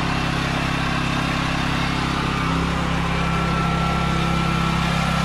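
Westinghouse WGen9500DF portable generator's 420cc four-stroke OHV engine running at a steady speed on its first run, just after its first cold start.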